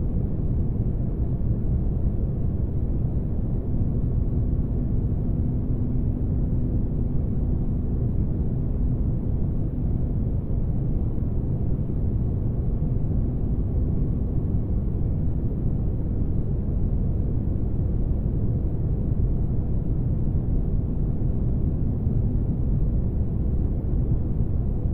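Spaceship-interior ambience used as white noise: a steady, deep rumble with no breaks. A faint hum rises above it about four seconds in and fades out by about fourteen seconds.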